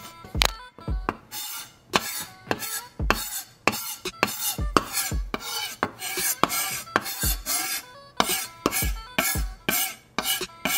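Kitchen knife blade scraping fat off raw pork skin, in short rasping strokes about twice a second, over background music with a low beat.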